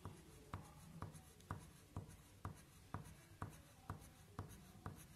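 Pen on paper drawing a row of small arches, faint: a light scratch with each stroke, about two a second, evenly paced.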